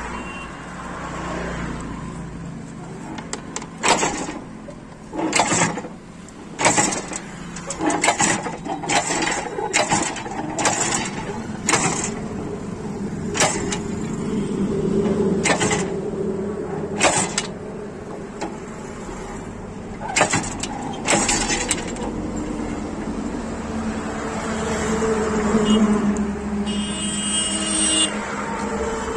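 Irregular metal clanks and knocks from a truck's under-chassis spare-wheel carrier being worked with a long wheel brace to lower the spare tyre. A steady low vehicle rumble runs underneath, and a brief high squeal comes near the end.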